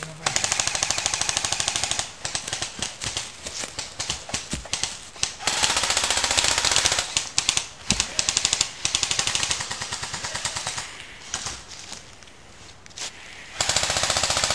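Airsoft guns firing long rapid-fire bursts on full auto, with short gaps and scattered shots between the strings.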